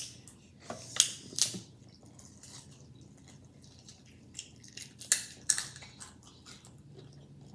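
Eating sounds from a seafood boil eaten by hand out of a plastic bag: scattered crackles and crunches of the bag and the food being handled. They are loudest about a second in and again about five seconds in, with quiet ticks between.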